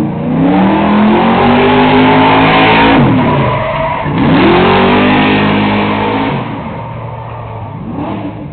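Pickup truck's engine revving hard during a tyre-smoking burnout, with a dense hiss from the spinning rear tyres. The revs climb for about three seconds, drop away, climb again about a second later and fall off around six seconds in, leaving a lower engine drone.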